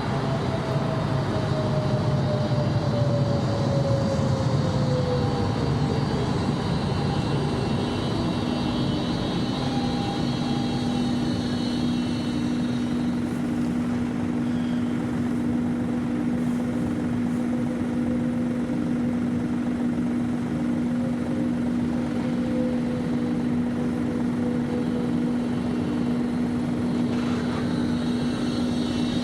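Electric tram's drive whining down in pitch as it slows over the first six seconds or so, then a steady electrical hum as it stands. A faint high whine sits over it in the first half and comes back near the end.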